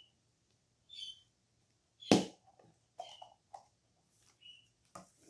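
Hollow plastic blind-box capsules being twisted and pulled apart by hand: small clicks and creaks of plastic, with one sharp snap as a capsule pops open about two seconds in.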